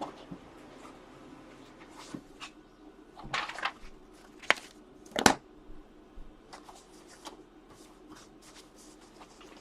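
Handling noise: scattered light clicks and rustles, with a few louder rustling scrapes around the middle.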